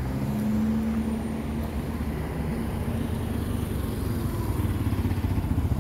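Road traffic passing close by: a car drives past with its engine and tyres on the road, followed by a small motor scooter engine going by.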